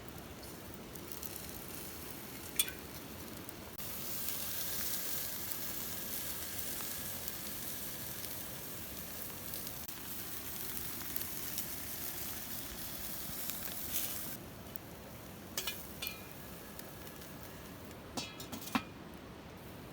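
Food frying in a pan: a sizzle that swells about four seconds in and drops back after about fourteen, with a few sharp clicks.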